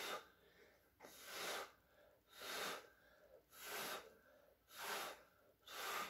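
A person blowing hard on wet acrylic paint in repeated puffs of breath, about one a second, pushing the cell mix outward to open a bloom.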